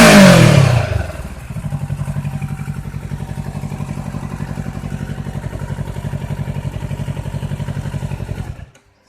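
Kawasaki Ninja 650's parallel-twin engine on its stock exhaust, dropping back from a rev to a steady, pulsing idle. The engine is switched off near the end.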